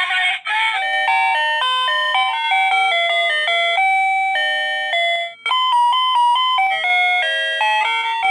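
Plug-in wireless doorbell receiver playing an electronic chime melody of stepping notes. It breaks off about five seconds in and a different ringtone tune starts as the selectable sounds are stepped through.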